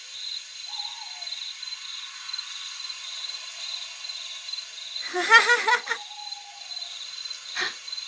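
Steady high chirring of crickets in a night-time ambience. About five seconds in, a child's giggle sounds briefly: high-pitched, in quick repeated pulses.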